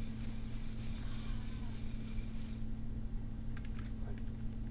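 Ben 10 Ultimatrix toy playing a high, warbling electronic sound effect that wavers about four times a second and cuts off suddenly a little over halfway through. A few faint clicks follow.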